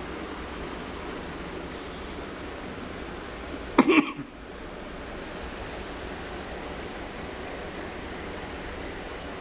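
Aquarium filter outflow running steadily, its return stream splashing and bubbling at the tank's water surface. About four seconds in there is one brief, loud knock.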